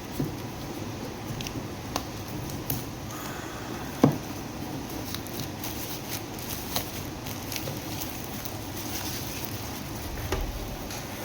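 Packaging of an in-ear monitor bundle being handled and opened: scattered small clicks, taps and rustles, with one sharper knock about four seconds in. Under it runs a steady hiss of tropical rain.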